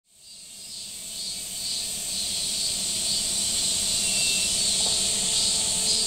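Chorus of night insects fading in: a dense, steady high trilling with a softly pulsing lower layer. Sustained music tones come in near the end.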